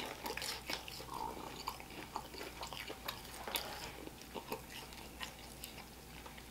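A person chewing a mouthful of Korean fried chicken close to the microphone: irregular wet, crunchy mouth clicks that grow fainter over the seconds.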